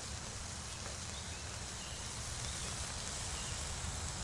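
Steady outdoor background ambience: a low, even rumble and hiss, with a few faint bird chirps.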